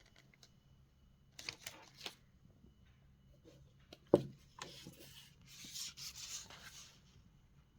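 Packaging being handled and rubbed: a few light clicks, a single sharp knock about four seconds in, then a spell of rustling, like cardboard and paper sliding against each other.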